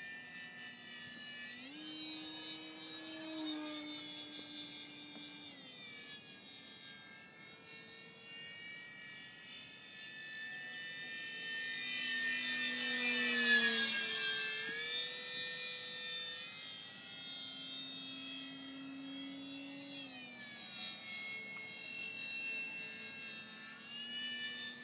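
Electric motor and propeller of a Parkzone P-47 radio-controlled model plane whining in flight, the pitch stepping up and down with throttle and distance. About 13 seconds in, the plane makes a louder close pass, and the whine drops in pitch as it goes by.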